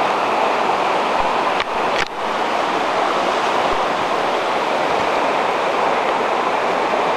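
Steady rushing of a rocky mountain river, with a brief dip about two seconds in.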